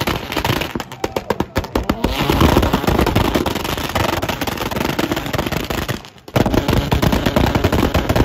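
Widebody Mazda RX-7 revving hard while doing donuts, its exhaust backfiring in a rapid string of sharp pops and bangs as it shoots flames. The crackling is densest about a second in. The engine then runs on loud and hard, dropping off briefly about six seconds in.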